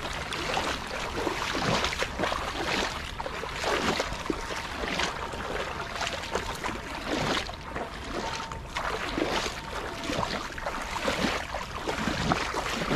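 Water splashing and sloshing in irregular strokes as a person wades steadily through shallow water, feet and legs pushing through the surface while a gill net is dragged and laid out.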